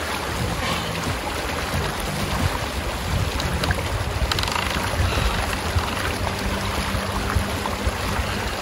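Shallow river rushing over a stony bed, a steady, fairly loud rushing with a low rumble underneath.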